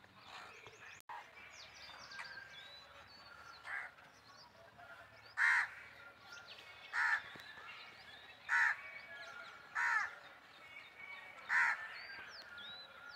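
A crow cawing five times, short harsh calls about a second and a half apart, with small birds chirping faintly throughout.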